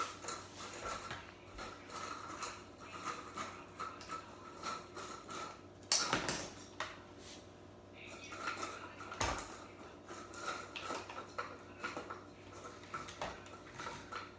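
Handling noises of a toy RC car being moved and fiddled with: many small clicks and taps of hard plastic, with a louder knock about six seconds in and another about nine seconds in.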